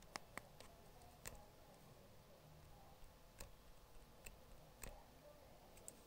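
Faint computer mouse clicks at irregular intervals, about nine in all, over quiet room tone.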